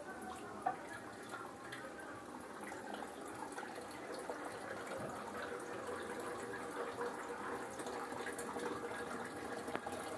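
Tomato rice simmering in a metal pot on a gas stove, bubbling with a steady run of small pops and crackles.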